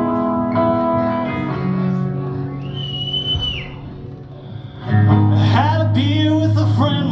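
Live rock band starting a song: guitar chords ring and thin out. About five seconds in, the full band comes in loudly with a deep bass.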